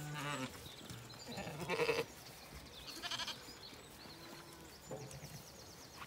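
Zwartbles sheep bleating: three wavering bleats, the loudest about two seconds in. A bird trills briefly in the background near the end.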